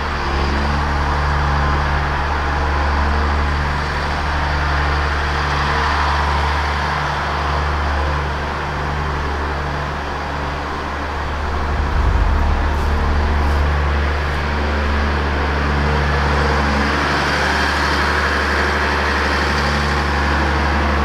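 Case IH 7140 tractor's diesel engine running steadily, a low hum that swells and eases every few seconds as the tractor moves through the yard.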